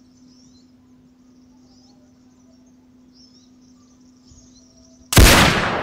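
A single rifle shot about five seconds in, sudden and very loud, with a short echoing tail. Before it, only faint high chirping and a steady low hum.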